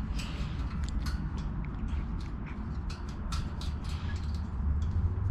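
Short metal clicks and scrapes of wire being wrapped and twisted around a steel basket bar, over a steady low rumble.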